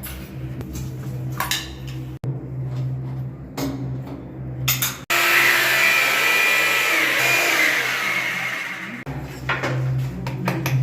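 An electric power tool's motor running, loudest with a steady whine for about four seconds in the middle, between abrupt cuts.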